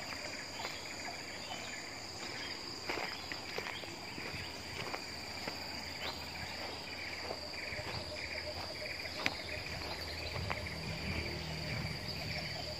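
A steady, high-pitched drone of insects in tropical forest, with a second weaker buzzing band beneath it, and scattered faint clicks.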